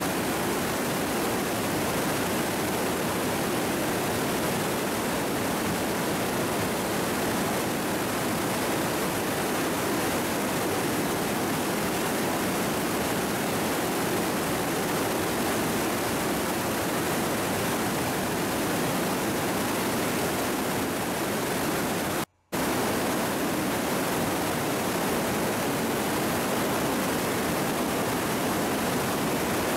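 Glacial meltwater river rushing through a narrow rock gorge, a steady roar of white water. It breaks off for a split second about twenty-two seconds in.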